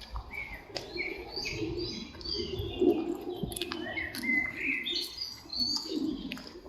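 Songbirds chirping and twittering in quick overlapping calls, with a few sharp clicks scattered through.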